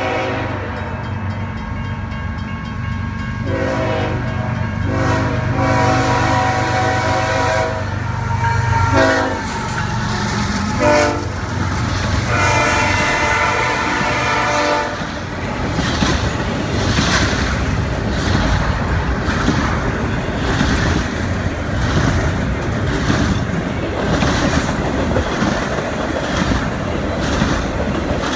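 Horn of a CSX GE diesel locomotive sounding a series of long and short blasts for a grade crossing, over the low rumble of the approaching locomotives. The horn's pitch drops as the locomotives pass, about ten seconds in, then one last long blast follows. From about fifteen seconds the wheels of the passing intermodal container cars clack over the rails in a steady rhythm.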